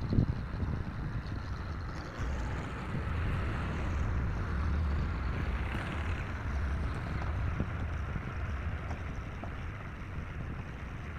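Tractor engine running steadily, with a few light knocks.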